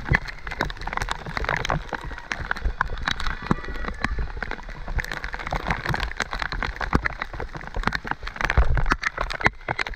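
Heavy rain hitting a helmet-mounted action camera during a fast mountain-bike descent: a dense, irregular crackle of drops. Low thumps come from the bike jolting over rough, wet trail, heaviest about eight and a half seconds in.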